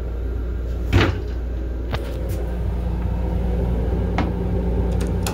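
Steady low rumble of a Long Island Rail Road M7 railcar, heard inside its restroom, with a few sharp knocks and clicks as the toilet seat is handled and lifted; the loudest knock comes about a second in.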